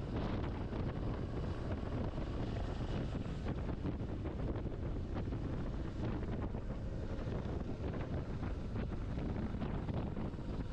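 Steady wind buffeting on the microphone of a moving motorcycle, a dense low rumble that covers the engine and road noise.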